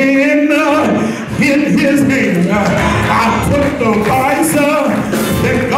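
A man singing a gospel line unaccompanied into a microphone, with long held notes that waver and bend in pitch.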